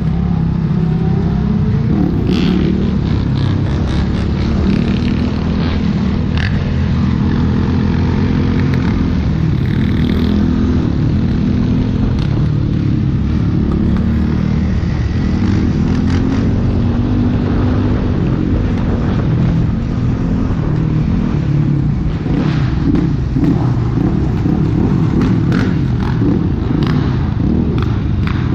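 Motorcycle engine running under way, its pitch rising and falling with the throttle, with steady road and wind noise.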